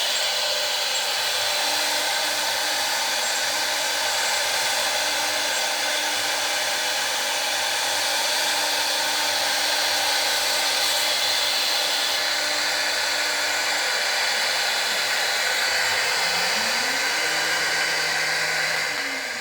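Homemade CNC router's spindle running steadily while cutting expanded PVC sheet, a constant high hiss. A fainter low hum runs underneath, rising and then falling in pitch near the end as the machine's axes speed up and slow down.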